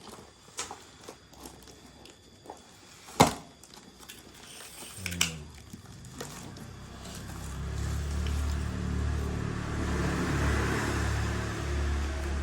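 Scattered light clicks and one sharp knock, then a low, steady, motor-like hum sets in about five seconds in and grows louder.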